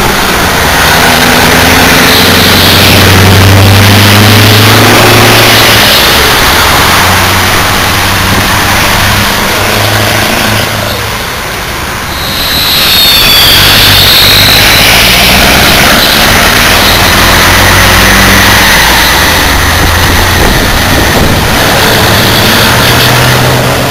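Loud diesel truck engines, led by a Scania 143 420 V8: the V8 pulls with its pitch rising and falling as it goes through the gears. The noise dips briefly about halfway, then heavy engines run on loudly.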